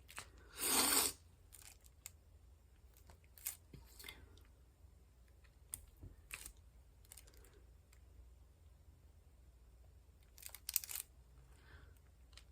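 Faint handling sounds of diamond-painting work: a brief rustle about half a second in, then scattered light clicks and taps.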